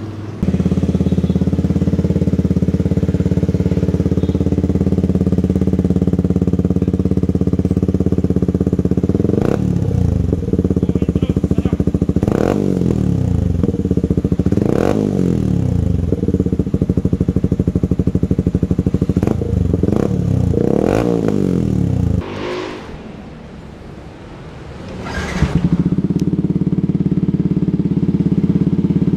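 Yamaha R15's single-cylinder four-stroke engine idling through an aftermarket exhaust: an Akrapovic elbow with resonator and an SC Project muffler with its silencer removed. It is revved in several quick throttle blips that rise and fall, about ten seconds in, twice more near twelve and fifteen seconds, and again around twenty seconds. It drops much quieter for about three seconds, then revs back up.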